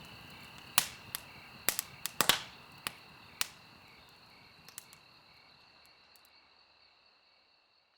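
Campfire crackling with sharp pops, bunched in the first three or four seconds and then sparser, over the steady high chirring of insects; the whole sound fades out to silence near the end.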